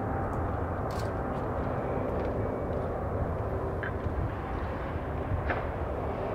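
Airbus A380's four Rolls-Royce Trent 900 jet engines running, a steady deep rumble as the airliner rolls along the runway.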